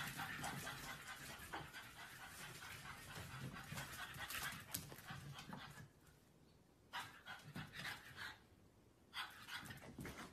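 Faint panting of a small dog, with small scuffing clicks. After about six seconds it thins to a few short, faint sounds.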